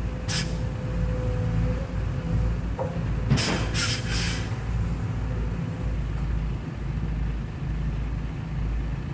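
Diesel engines of an excavator and a dump truck running as a distant low rumble, with a few sharp clanks about three to four seconds in while the excavator loads earth into the truck.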